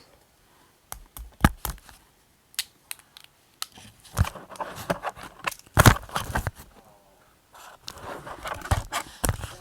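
Journaling stationery handled on a desk: scattered sharp clicks and taps with short paper rustling, scraping and tearing sounds. The loudest is a tap about six seconds in.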